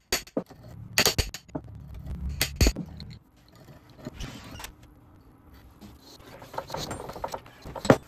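A hammer striking the handle of a steel pipe wrench gripping the end of a John Deere 410 loader's hydraulic cylinder clamped in a vise, knocking it loose, with several sharp metallic clanks in the first three seconds. The wrench is then turned by hand with scraping and rattling metal, and there is one loud knock near the end.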